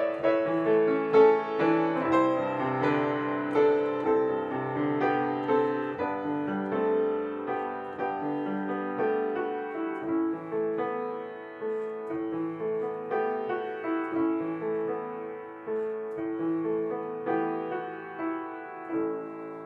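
Solo piano playing a slow, gentle instrumental piece of single and chorded notes, growing softer toward the end with a last note dying away.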